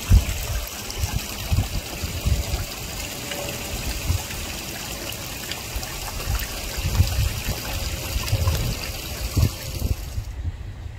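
Garden koi pond water trickling and splashing steadily, with irregular low gusts of wind on the microphone. The water sound drops away near the end.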